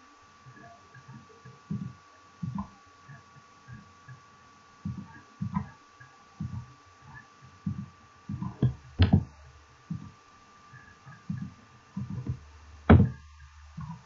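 Computer mouse and keyboard being worked at a desk: a string of soft, irregular thumps and two sharper clicks in the second half. A faint steady high whine runs underneath.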